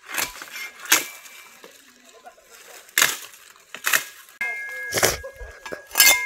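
A series of sharp knocks and clinks of hard objects, about one a second, some leaving a brief ringing tone.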